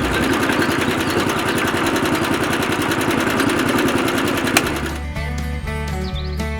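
A small motor-driven machine running with a fast, even mechanical rattle for about five seconds, then stopping as background music carries on.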